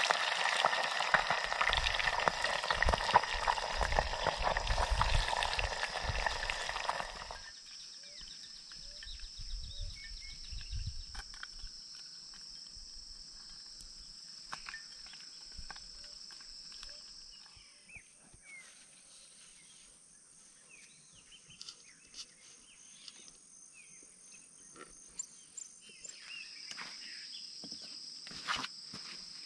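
Small lambari fish frying in hot oil in a cast-iron pot over a campfire: a loud, even sizzle that cuts off suddenly about seven seconds in. After that, quieter outdoor ambience: a steady high insect drone, with short bird chirps and a few light clicks.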